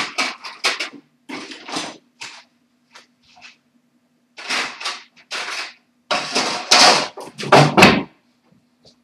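Drawers and cupboards being opened, shut and rummaged through in a search for pliers: a run of irregular clatters and scrapes, the busiest stretch near the end.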